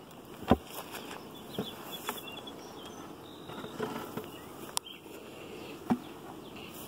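Honeybees buzzing around an opened beehive, with several sharp cracks and knocks as a hive tool prises off the propolis-sealed outer cover and the cover is put down. The loudest knock comes about half a second in.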